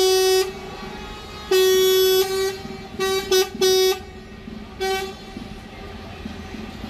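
Truck horn honking on one steady pitch: a short blast, a longer blast of under a second, three quick toots, and a last short toot about five seconds in. Traffic noise runs underneath.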